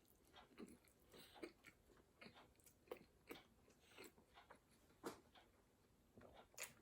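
Faint chewing of a big mouthful of 4x4 burger: soft, moist chews with small crunches, about two a second at an uneven pace.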